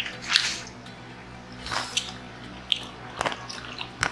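Close-miked eating sounds: wet, squishy chewing and mouth smacks as pizza and pasta are eaten. A few sharp clicks from a fork working pasta in a plastic container come about three seconds in and again near the end.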